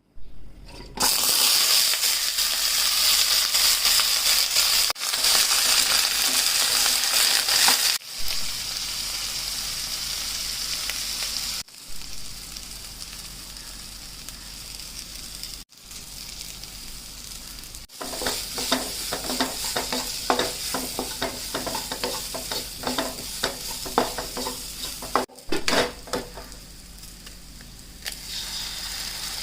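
Food frying in a pan, a steady high sizzle that jumps in level at several abrupt cuts. In the later part a utensil stirs and scrapes in the pan with many quick clatters over the sizzle.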